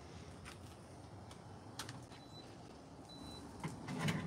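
Faint, scattered clicks and light knocks of cookware and utensils being handled on a table, over a steady low background hiss.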